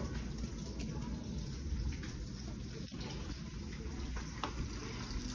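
Steady low hiss with a low rumble underneath.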